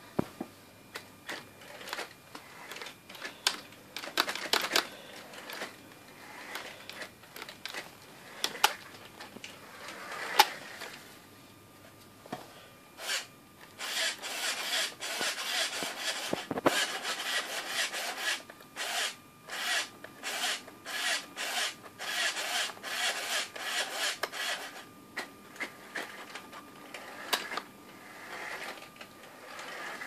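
Small electric drive motors of a home-built robot vacuum on a toy RC car chassis whirring in short bursts, about one a second, as it is driven by radio remote control. Scattered clicks and knocks come in the first dozen seconds.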